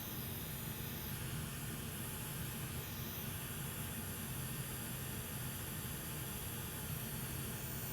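Steady hiss of blowing air with a low hum underneath, from a bench fan or blower running while a connector's solder is reflowed onto a circuit board.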